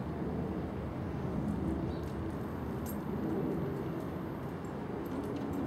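Jet engines of a Boeing 737-700 climbing out after takeoff, heard from the ground as a steady low rumble. A few faint clicks come about two to three seconds in.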